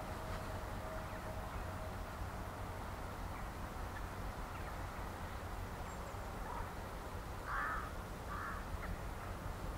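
The distant whistle of a narrow-gauge steam tank locomotive fades out over the first two seconds, over a steady low rumble. Later on, two or three short, harsh cawing bird calls sound.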